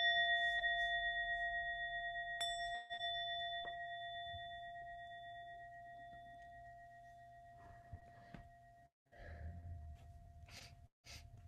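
A singing bowl struck and ringing with a clear, slowly fading tone, struck again about two and a half seconds in; the ring opens a period of silent writing. A few faint knocks and rustles near the end.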